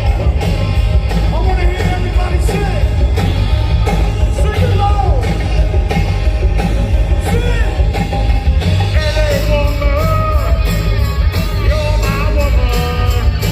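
Live rock band playing and singing, with drums beating steadily under a sung melody.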